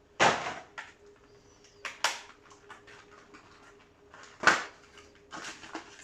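Trading-card packaging and cardboard handled close up: a few short rustles and scrapes, the loudest about four and a half seconds in, over a faint steady hum.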